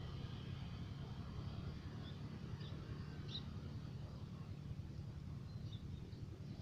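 Rice-field outdoor ambience: a steady low rumble with a few short, faint high bird chirps scattered through it.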